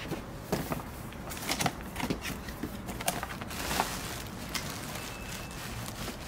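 Cardboard box being opened by hand, its flaps scraping, and a plastic bag holding a folded inflatable rustling and crinkling as it is pulled out: irregular scrapes and crinkles.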